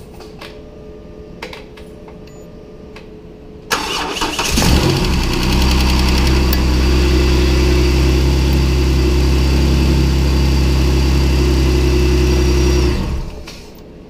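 Jeep Wrangler's 3.8-litre V6 cranked by the starter a little under four seconds in, catching within a second and idling steadily with no exhaust tick, its cracked exhaust manifold now replaced. The engine is shut off near the end.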